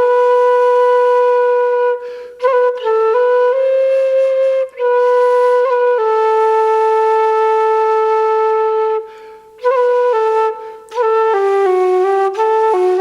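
Solo flute playing a slow Irish air: long held notes in a single melodic line, broken by short pauses for breath, with quick grace notes flicked in between some of the notes.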